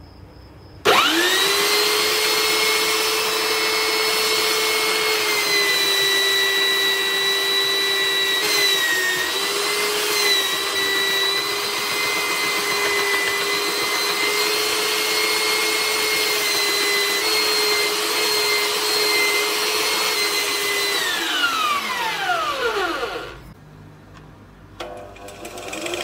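Electric belt sander switched on about a second in and running with a steady whine while a metal saw blade is pressed flat against its sanding belt to grind off rust; the pitch dips slightly now and then under the load. Near the end it is switched off and winds down, its pitch falling over about two seconds.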